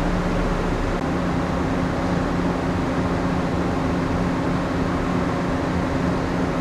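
Steady hum of a moored passenger-cargo ship's onboard machinery, with a few held tones over a dense rumble. About a second in, the lowest rumble drops away and a new, slightly higher tone joins.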